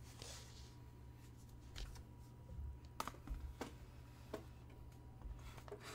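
Quiet room tone with a low steady hum and a faint steady high tone, broken by a few faint scattered clicks and taps.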